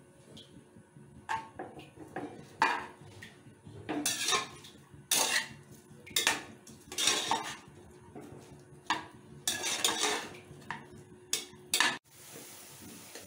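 A spatula scraping and stirring chopped onions against the bottom and sides of an aluminium pressure cooker, in a dozen or so irregular strokes. Near the end a steady hiss of the onions frying in oil takes over.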